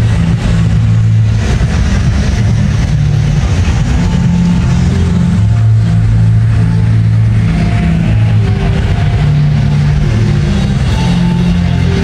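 Electronic dance music from a DJ set played loud over a large festival sound system, dominated by a heavy bass line that steps between notes every second or so, with fainter held synth notes above it.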